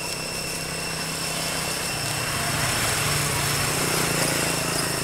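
A small engine running, growing louder about two seconds in and easing a little near the end, over a steady high-pitched ringing.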